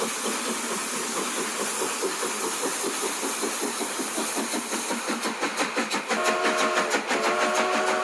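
Small steam engine running with a fast, even chuffing over a steady steam hiss. About six seconds in, a multi-tone steam whistle sounds, breaks off briefly and sounds again.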